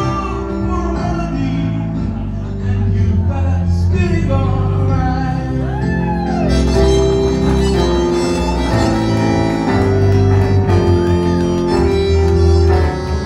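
Live band music: bass and held keyboard chords over drums, getting a little louder about two and a half seconds in.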